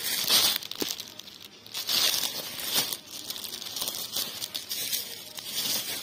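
Clear plastic wrapping on packaged towels crinkling in repeated bursts as the packs are handled and shifted, loudest near the start and about two seconds in.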